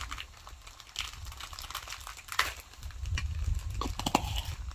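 Scattered small clicks and scrapes of a metal spoon against a glass jar and a small metal bowl as seasoning powder is spooned out, with a low rumble joining about three seconds in.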